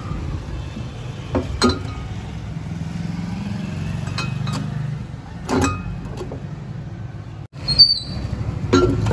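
Glass jars of water being set down on a shelf, knocking and clinking several times, one knock near the end ringing briefly like glass. Under it runs a steady low rumble.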